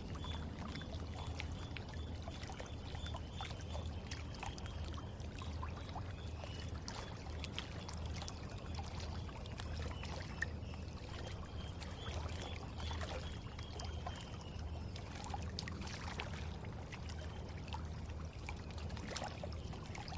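River water flowing steadily, trickling with many small drips and splashes over a low rumble.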